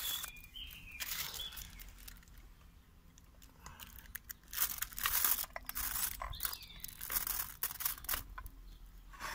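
Aluminium foil crinkling in short, irregular bursts as a foil-covered plate of chopped vegetables is handled, with a plastic spatula scraping chopped onion off it.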